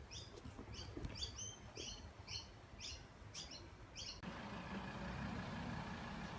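A small bird chirping again and again, short high chirps about two a second. About four seconds in, the chirping stops and a steady, even background noise takes over.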